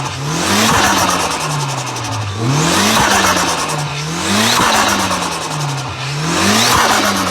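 Turbocharged engine revved four times, about two seconds apart, its pitch rising and falling each time, with a loud turbo hiss and flutter around the top of each rev.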